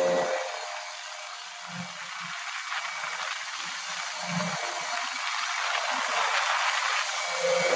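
Mini jet boat's small engine easing off just after the start, then running low under a steady rushing hiss of water and air. The engine tone comes back up near the end as it is throttled again.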